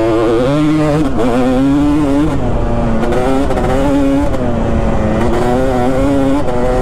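2005 Kawasaki KX250's single-cylinder two-stroke engine revving under way, its pitch rising and dropping several times as the throttle is opened and shut through the track's sections.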